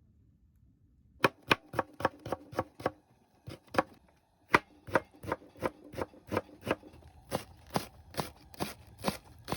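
Knife chopping on a cutting board: sharp, even strokes about three a second, starting about a second in, with a brief pause near the middle.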